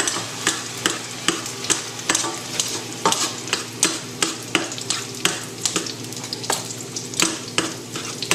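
Knife and fork chopping whole tinned tomatoes in a stainless steel saucepan: irregular metal clicks and scrapes against the pan, several a second, over onion and green pepper sizzling in oil. A steady low hum runs underneath.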